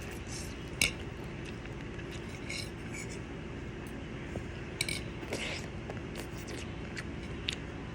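Cutlery clicking and scraping against a dish while an egg is eaten: a few sharp clicks scattered over a steady low hum, the loudest about a second in.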